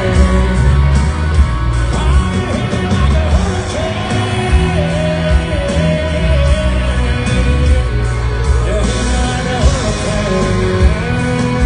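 Live country band playing, with a lead vocal singing the melody over electric guitar, bass and a steady drum beat.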